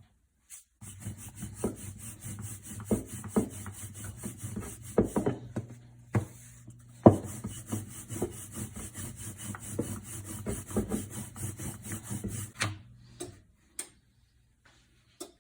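Repeated rubbing and scraping against wood, with irregular knocks and taps, from kitchen work on the paratha. A steady low hum starts about a second in and cuts off near the end.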